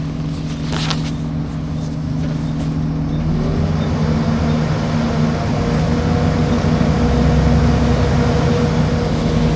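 A road vehicle's engine running steadily, its pitch rising about three seconds in as it speeds up, then holding at the new pitch. A short high whine sounds in the first couple of seconds.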